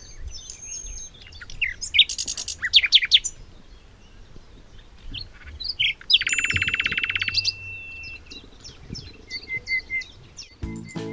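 Birds chirping and trilling: scattered short high chirps, a fast trill about two seconds in and a longer buzzy trill around six seconds in.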